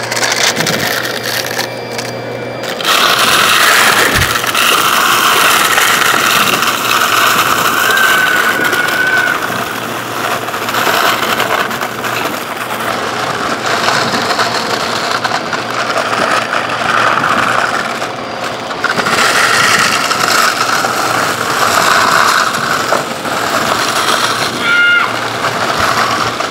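Purple Dirt Devil vacuum running with its brush roll, crunching and rattling as it sucks up soda-can pull tabs, plastic beads, small wooden blocks and grit from a carpet. It gets louder about three seconds in, and the crunching swells and fades as the nozzle passes back and forth over the debris.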